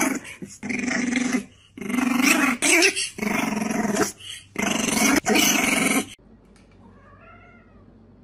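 French bulldog puppy giving a string of loud, rough growling barks, about six bursts each under a second long. They stop suddenly about six seconds in.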